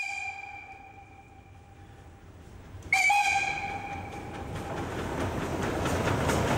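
Narrow-gauge steam locomotive's steam whistle: a held note trails off at the start, and a second short blast sounds about three seconds in. Then the engine's exhaust beats and running noise build as it draws close.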